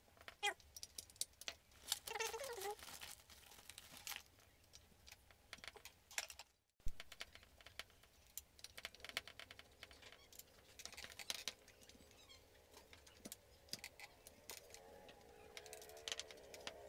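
Irregular light clicks, taps and rattles of a screwdriver and hands working on the opened metal casing and internal parts of a Lakoni 120E inverter welding machine as it is dismantled.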